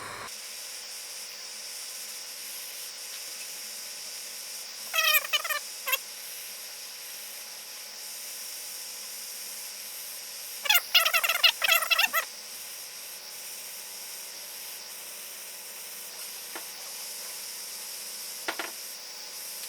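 Steady hiss of a jeweller's soldering torch as the links are soldered one after another, with two short bursts of warbling chirps about five and eleven seconds in.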